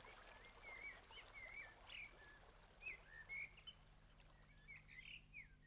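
Faint songbird song: a string of short, clear warbling phrases that slide up and down in pitch, repeating throughout.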